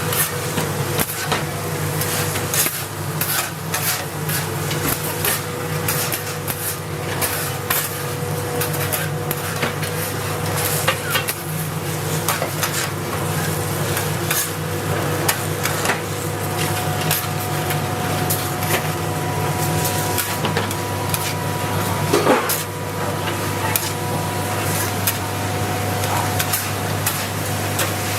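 Street-stall cooking: metal utensils clanking and scraping against a pan or wok, with some sizzling, over a steady low hum.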